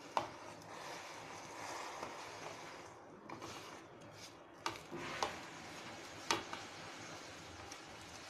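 Roasted thin vermicelli being swept by hand off a plastic plate into a pot of milk: a faint rustle of strands and fingers on the plate, with a few light clicks.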